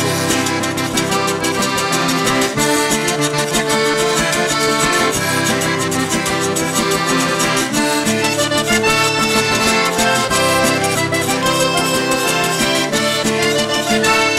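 Cajun-zydeco trio playing an instrumental passage: a button accordion carries the melody over the fast, even scraping rhythm of a frottoir (rubboard) and a strummed acoustic guitar.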